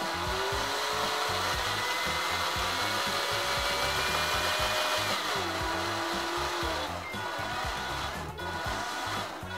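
Small PWM-driven DC motor spinning a drill chuck to wind enamelled copper wire onto a spool, its whine rising steadily in pitch as it ramps up on a soft start. About five seconds in the pitch drops as it slows, and it stops about seven seconds in at the end of its set count of turns.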